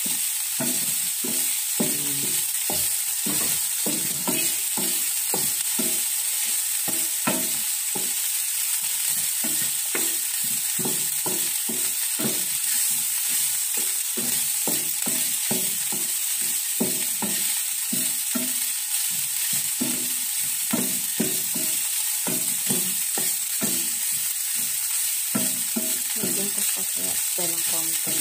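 Pork pieces sizzling in a nonstick frying pan, stirred and scraped with a wooden spatula in quick repeated strokes, about two or three a second. The pork is frying in its own rendered fat to brown.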